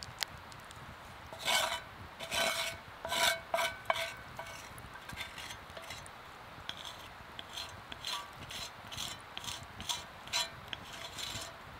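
Repeated scraping strokes with a slight ring: about five strong strokes in the first few seconds, then a run of lighter, quicker ones.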